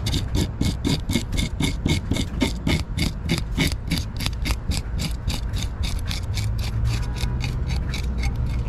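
Handheld metal fish scaler scraping the scales off a mangrove snapper in quick, even rasping strokes, about five a second.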